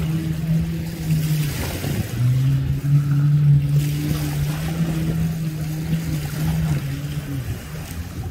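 Engine running steadily. It cuts out briefly about a second and a half in, then comes back at a lower pitch and runs on.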